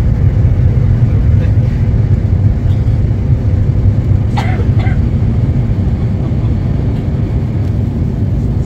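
Jet airliner cabin noise in flight: the engines and rushing air make a steady, deep, even roar, with a faint steady hum above it. A couple of faint, brief sounds rise above the roar about four and a half seconds in.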